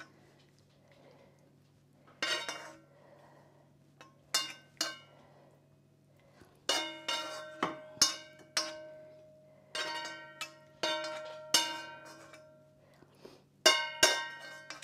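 A kitchen utensil knocking against a dish as cooked shrimp are set one by one on a bed of rice: about a dozen sharp clinks in irregular clusters, several leaving a ringing tone that lingers. A faint steady low hum runs underneath.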